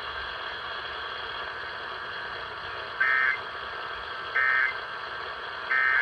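Three short bursts of SAME digital data tones from a NOAA Weather Radio broadcast, about a second and a half apart, over steady radio hiss. These are the end-of-message code that closes the severe thunderstorm warning.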